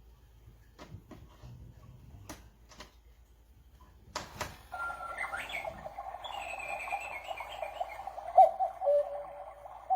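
Kendal MX210 cuckoo clock going off: after a sharp click about four seconds in, a continuous warbling, chirping sound starts and runs on, with a few bird-like rising notes near its start.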